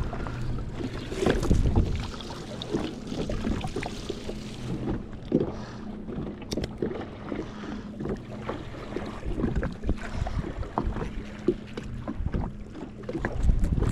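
Irregular knocks, taps and rattles of hands working gear on a jet ski, with wind on the microphone and a faint steady low hum underneath.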